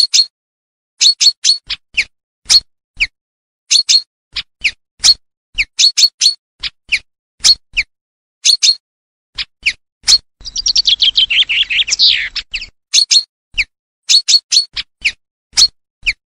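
Common chaffinch calling: short, sharp, high call notes repeated at irregular intervals. About ten seconds in comes one full song, a two-second run of rapid notes falling in pitch and ending in a longer downward sweep.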